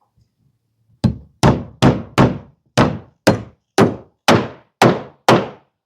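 Hammer driving a nail through a wooden batten into the board siding: ten sharp strikes about two a second, each with a short ring.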